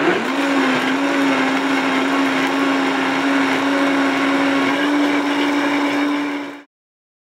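Powerful countertop blender running, blending a jar of whole fruit, vegetables and seeds into a thick smoothie. Its motor hum dips in pitch at the start, then holds steady. The sound cuts off suddenly near the end.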